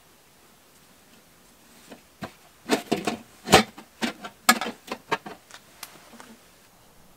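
Heavy woven blanket rustling, with hands patting and pressing it down as it is tucked around a wrapped pot. A quick run of short rustles and pats from about two seconds in, ending around six seconds.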